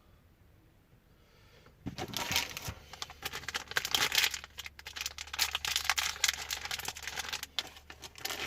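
Close, dense crinkling and clicking handling noise that starts about two seconds in and runs on irregularly, like plastic and wire being handled at close range.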